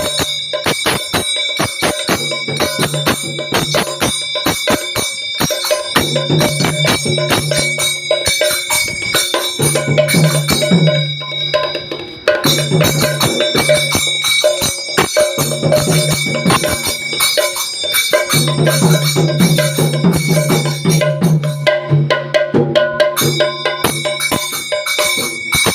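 Mridang, a double-headed hand drum, played in fast continuous strokes, with steady high ringing and a low sustained tone that drops out several times.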